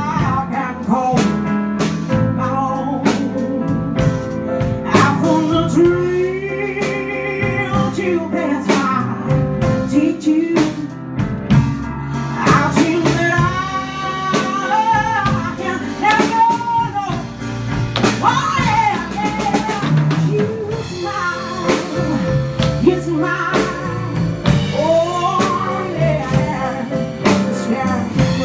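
Live blues band: a woman sings, holding long notes with vibrato, over upright bass, drum kit and guitar.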